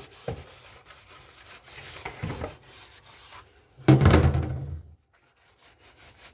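Scrubbing strokes on parts of a water dispenser being cleaned, a run of short rubbing passes, with a louder, heavier rub or knock about four seconds in.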